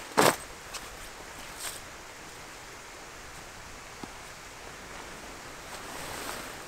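A tent's fabric carry bag handled and packed on dry leaves: one short, sharp noise just after the start, then faint rustling of fabric and leaves with a few light ticks.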